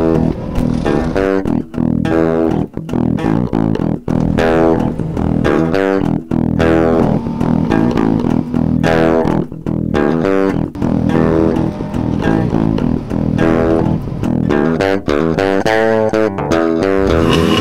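Loud background music led by guitar and bass guitar.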